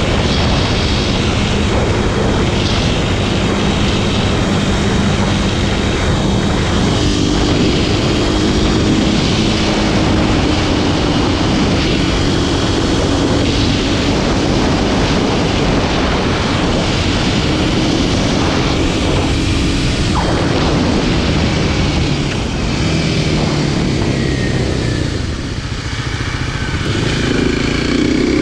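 Kawasaki KLX300SM supermoto's single-cylinder four-stroke engine running under way, its pitch shifting with the throttle. It eases off a few seconds before the end, then picks up again.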